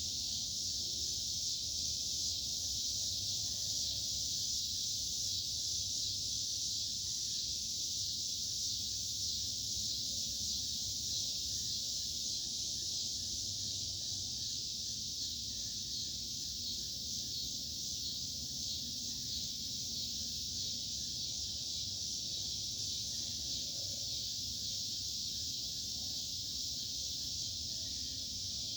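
Steady chorus of insects, a continuous high shrill trill with a fainter rapid pulsing beneath it, over a low outdoor rumble.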